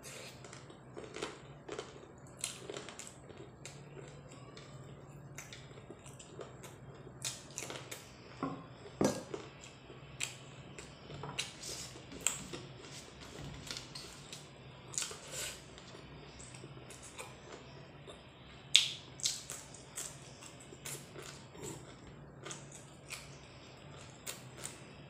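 Close-up eating sounds: chewing and mouth clicks with fingers working rice and curry on a plate, as irregular short clicks and crunches, the sharpest about 19 seconds in. A faint steady low hum runs underneath.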